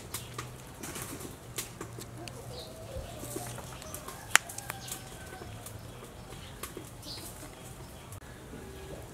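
Small wet clicks and soft rustles of cabbage leaf and green onion stalk being handled as the stalk is tied around a cabbage roll on a wooden cutting board, with one sharp tap about four seconds in.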